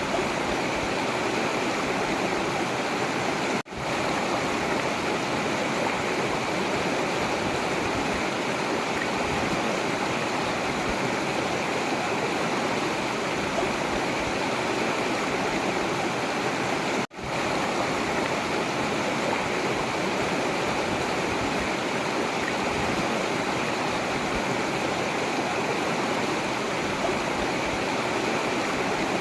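Forest river flowing with a steady, even rushing. The sound dips out for an instant twice, about four seconds in and again past the middle.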